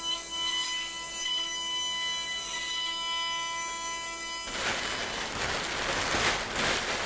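Five-axis CNC router running with a steady multi-tone machine whine. About four and a half seconds in, the whine gives way to a broad rushing noise.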